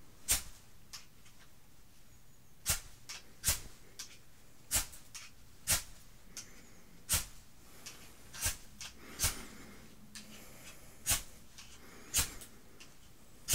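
Ferrocerium rod scraped by the freshly filed spark edge on a Swiss Army knife: about ten quick, sharp scrapes at irregular intervals a second or so apart. The edge is throwing plenty of sparks.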